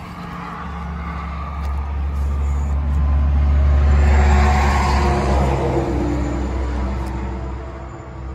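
A road vehicle driving past: a low engine rumble that builds over about four seconds, then fades, its pitch dropping as it goes away.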